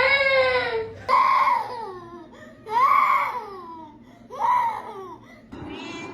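A cat meowing. A long drawn-out call ends about a second in, followed by three shorter meows, each rising then falling in pitch.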